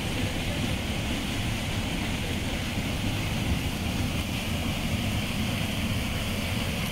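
Steady rushing of a river's current over rocks into a pool, a continuous low roar with hiss and no breaks.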